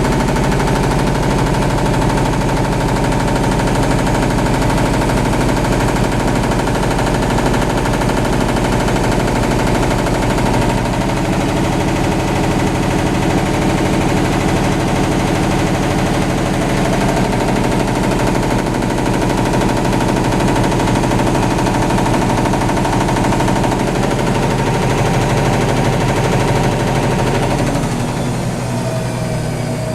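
Whirlpool Duet Sport front-load washer spinning at high speed, a loud steady drum whir with a fast rattle of vibration. Near the end it drops in level and begins to spin down.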